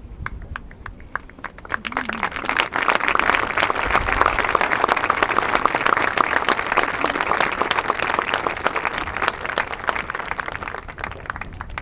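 Crowd applauding, with some voices among it; the clapping builds about two seconds in, holds steady, and thins out near the end.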